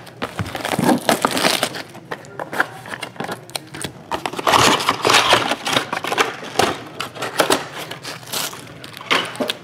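Plastic shrink-wrap crinkling as it is torn off a sealed trading-card box, and the cardboard box being handled and opened: irregular crackles and scrapes, busiest about four to six seconds in.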